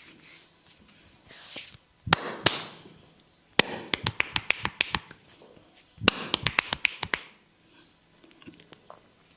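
Barber's hands tapping on a person's forehead and head during a head massage. Two single taps come first, then two quick runs of about a dozen sharp taps each, roughly eight a second.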